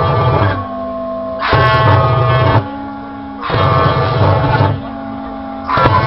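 Keyboard-played fire-and-horn music machine: flame bursts whoosh about every two seconds, each roughly a second long, over sustained horn-like notes that change pitch between bursts.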